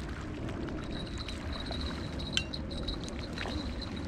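Wind buffeting the microphone with small waves lapping at a rocky lake shore. A thin, steady high-pitched tone comes in about a second in, and there is one sharp click past the middle.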